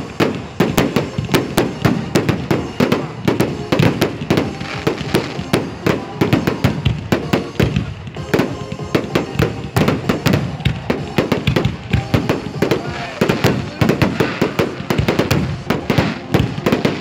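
Fireworks display going off in a rapid, unbroken barrage of bangs and crackles, many per second.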